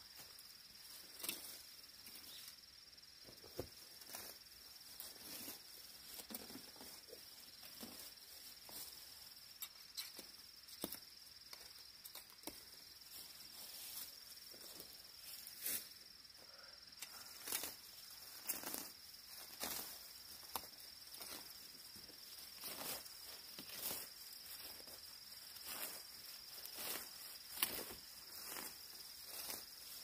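Hand sickle cutting through weeds and dry brush, with irregular swishes, snips and rustles about once or twice a second, and boots stepping on the slope. Under it, a steady high drone of insects.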